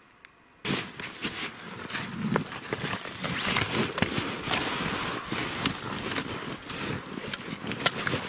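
Footsteps crunching in deep snow, with a parka rustling and a glove brushing against an upright-log wall. A quick, uneven run of crunches and scrapes starts a little under a second in.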